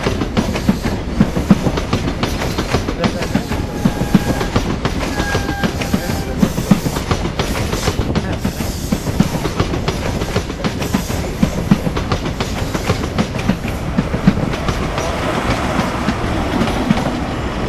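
InterCity 125 (HST) train rolling past: the Mark 3 coaches' wheels clatter and click over the rail joints above a steady low rumble. Near the end the Class 43 power car, with its MTU diesel engine, comes past and the noise grows fuller.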